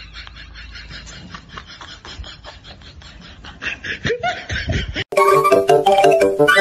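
Faint, rapid laughter-like chatter for about five seconds. Then an abrupt cut to loud instrumental music, a melody of short distinct notes.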